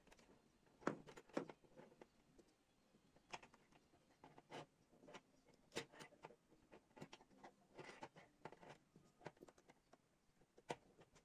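Irregular small clicks, taps and scrapes of a metal construction-kit quad bike's perforated metal strips, axles and plastic parts being handled while a plastic wheel is fitted onto an axle, with a sharper click about a second in and another near the end.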